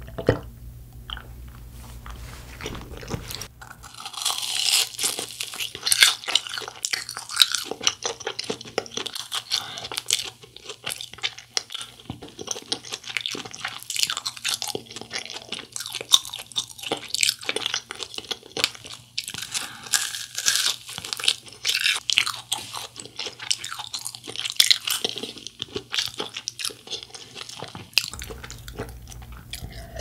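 Close-up crunching and chewing of a crisp fried cheese ball, its crust cracking in quick irregular crunches that start about four seconds in and run on steadily until near the end.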